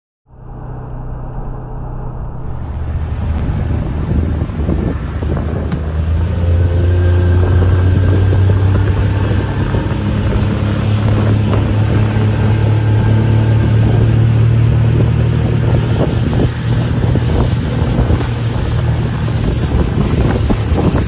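A couple of seconds of muffled vehicle driving noise, then a boat motor running steadily under way with wind buffeting the microphone. The motor's low hum grows louder over the first several seconds and then holds.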